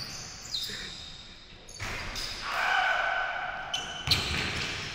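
Indoor basketball game on a hardwood court: sneakers squeaking and a basketball bouncing, with a sharp bounce about four seconds in.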